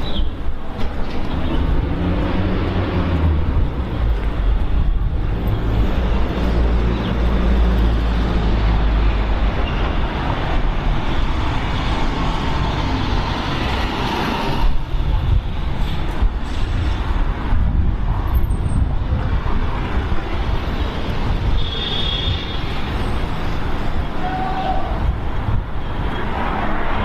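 City street traffic: a deep vehicle engine sound, strongest for the first ten seconds or so, then a steady wash of passing road traffic, with a couple of brief high tones near the end.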